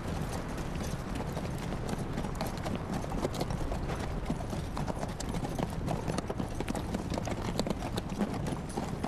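A caravan of ridden camels walking, their footfalls making a dense, irregular run of soft knocks over a steady hiss.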